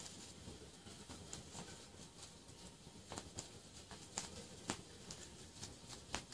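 Kittens play-fighting on a cloth-covered bed: faint scuffling on fabric with scattered light clicks from paws and claws, the loudest two a little past the middle.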